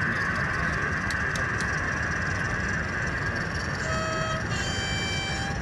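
A sound-fitted model diesel locomotive sounds its two-tone horn about four seconds in: a short lower note, then a longer higher note. Under it is the steady din of a busy exhibition hall.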